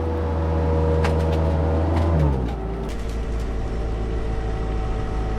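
Skid steer engine running steadily, then dropping in revs about two seconds in and settling to a lower, steady pitch, with a few light knocks.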